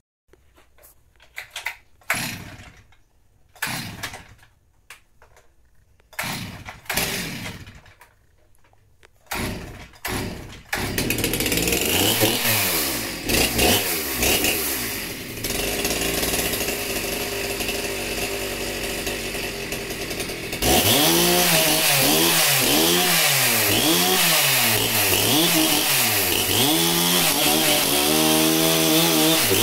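Stihl MS 361 two-stroke chainsaw being pull-started: several short pulls before it catches about ten seconds in. It is then revved and left running, and from about twenty seconds in it runs louder at full throttle cutting into a dry wooden stump with a new chain, the engine speed dipping and recovering under load.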